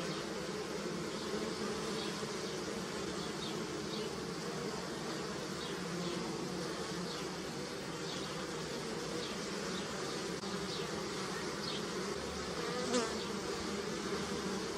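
Honeybees buzzing in a steady, dense hum, with faint high ticks about once a second and one brief louder sound near the end.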